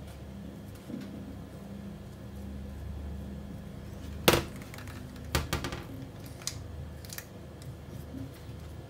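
Metal cookie scoop scraping ice cream and clinking against a glass dish, with one sharp knock about four seconds in and a few lighter clicks a second later, over a low steady hum.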